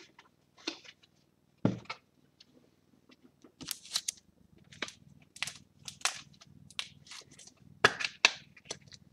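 A trading card in a rigid clear plastic holder handled and set on a tabletop: a knock about two seconds in, then a run of sharp plastic clicks and scrapes from about three and a half seconds on.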